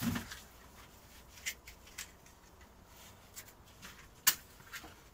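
A few short, sharp clicks and small handling noises while the gas stove is being lit, the loudest click about four seconds in.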